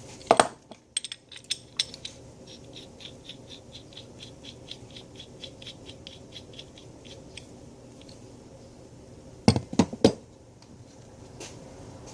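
Metal hand tools being handled. A few sharp clinks, then a run of light, even clicks at about five or six a second for some five seconds, then three loud knocks near the end.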